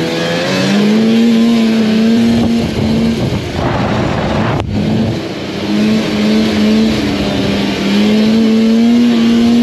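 Snowmobile's two-stroke engine running at high revs under way. Its pitch climbs in the first second, eases off around the middle, then pulls back up to a steady high pitch, over the rush of the track and snow.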